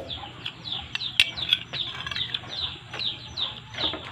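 Small birds chirping over and over, each chirp a quick downward slide, with a sharp click just over a second in.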